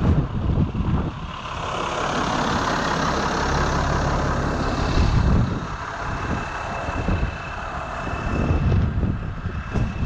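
Ford TW tractor's diesel engine running steadily. It grows louder and fuller about a second and a half in and eases back after about five seconds, and a thin steady high whine carries through the second half.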